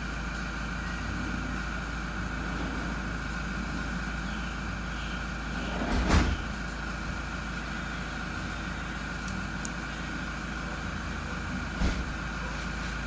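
A steady mechanical hum with a low rumble and a faint high whine, broken twice by a brief dull thump, about six seconds apart.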